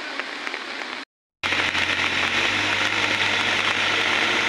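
Steady hiss of heavy rain that drops out briefly about a second in, then comes back louder. Under it runs a steady low hum from a backhoe loader's diesel engine.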